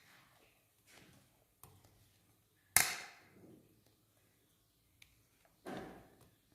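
Kitchenware knocking while cheesecake batter is emptied from a bowl into a mould: one sharp knock about three seconds in and a duller one near the end, with a few faint clicks between.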